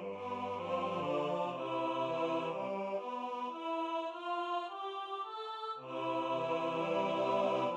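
Slow, sustained chords sung by synthetic, near-human choir voices: organ playing turned by computer into vocal sounds. The lowest voices drop out about three seconds in and come back near six seconds.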